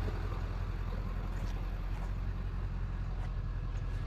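Truck engine and road noise: a steady low rumble.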